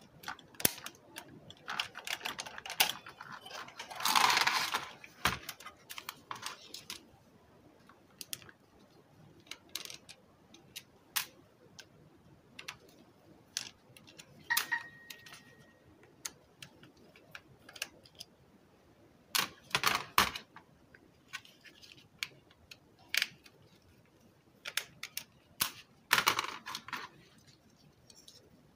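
Irregular clicks and clatter of plastic parts and small screws as the detachable front panel of a Sony Xplod car stereo is pulled off and unscrewed with a small screwdriver. A louder scraping rustle comes about four seconds in, and a single short ringing ping about halfway through.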